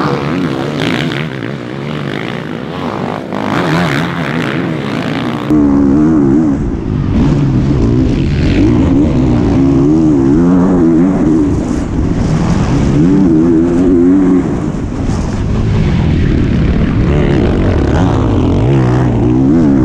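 Motocross bike engines, first heard trackside for about five seconds, then a sudden switch to one bike heard from on board: its engine loud and close, the pitch climbing and dropping again and again as the throttle is opened and closed round the track.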